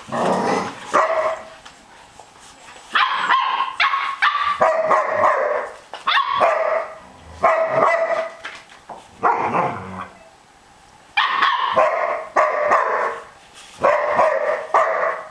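Barbet puppy barking at the adult dog in play: a run of high-pitched, yappy barks in quick groups, with a pause of about a second about two-thirds of the way through.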